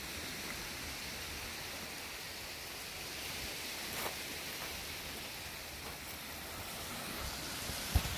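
Steady outdoor hiss of wind, with a few faint crunches of footsteps on gravel and a sharper knock near the end.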